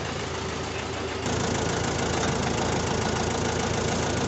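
Mahindra 595 Turbo tractor's diesel engine idling steadily, stepping up louder about a second in.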